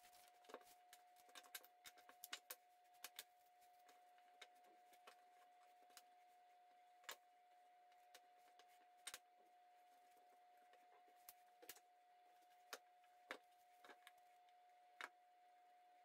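Very quiet: a faint steady whine, with scattered light clicks and taps of small wooden pieces being handled and set down on a wooden tabletop, more of them in the first few seconds.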